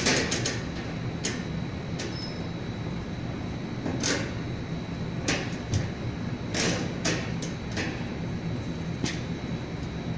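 Irregular knocks and clicks of hand work on metal parts, over a steady low hum.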